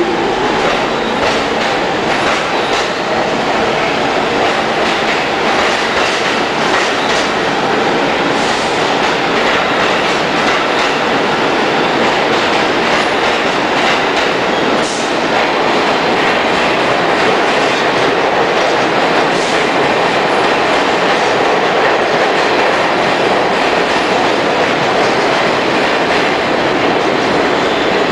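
New York City Subway train of stainless-steel cars running through an underground station, its wheels clattering steadily over the rails with a loud, continuous, echoing rumble.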